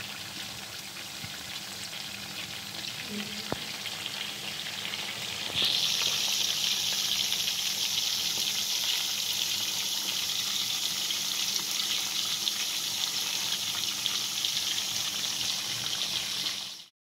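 Marinated chicken drumsticks deep-frying in hot oil in a metal pan, a steady sizzle and bubbling. The sizzle jumps louder about five and a half seconds in and cuts off suddenly near the end.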